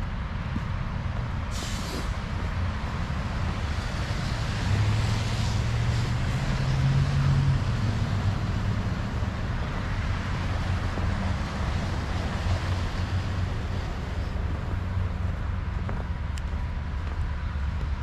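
Road traffic with a city bus's engine drone swelling and passing between about four and eight seconds in. A short hiss of air brakes comes about a second and a half in.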